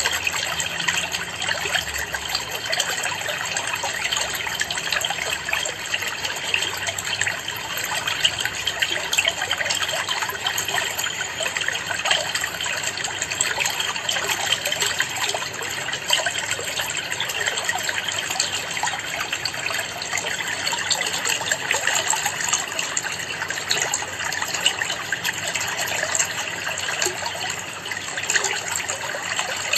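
Aquarium water trickling and splashing steadily, a continuous gurgling hiss with no breaks.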